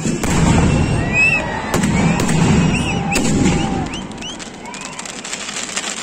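Fireworks going off in a display: sharp bangs over a dense crackling rumble, with short rising whistles in the middle. The crackling eases somewhat after about four seconds.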